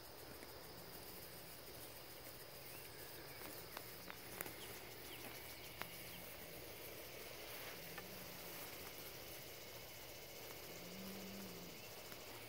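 Faint evening chorus of crickets and other insects in a rural pasture, a steady high buzz, with a few soft clicks.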